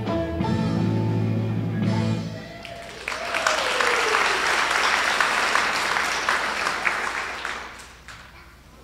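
A piece of music ends about two seconds in, then an audience claps for several seconds, the applause fading away near the end.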